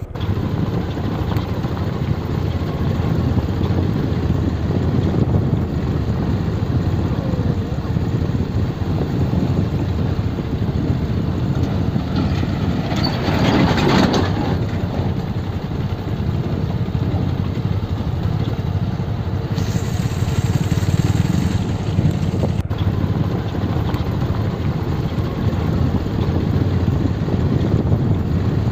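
Motorcycle riding slowly over a rough dirt road: steady low engine and tyre rumble, with a louder rush of noise about halfway through.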